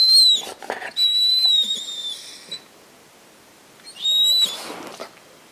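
White shepherd dog whining in thin, high-pitched cries while pawing at its owner to keep her from getting up, a seizure alert dog's alerting behaviour. There is a short cry at the start, a longer wavering cry about a second in, and another short cry about four seconds in, with brief rustling of paws on the blanket.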